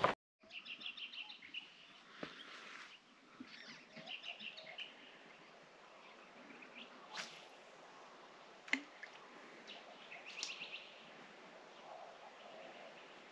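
Birds chirping faintly in short runs of quick repeated notes, with two sharp clicks in between, the louder one near the nine-second mark.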